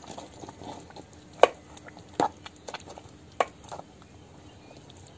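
Wooden spoon stirring amaranth-greens gravy in a clay pot, with a few sharp knocks of the spoon against the pot. The loudest knock comes about a second and a half in.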